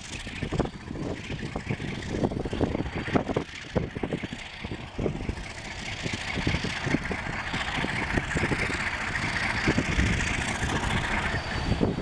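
Train cars rolling past: a steady rumble with many irregular knocks. A hiss grows louder about halfway through and fades near the end.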